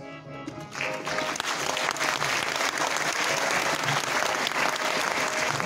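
An audience breaks into applause less than a second in and keeps clapping steadily, with music playing underneath.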